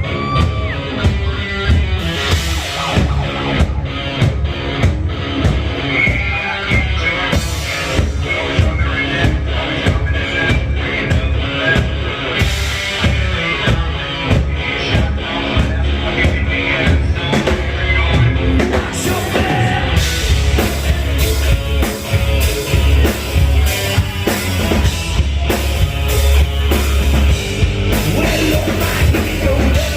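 Hard rock band playing an instrumental passage: a driving drum kit with a steady kick-drum beat and crash cymbals, over electric guitars and bass.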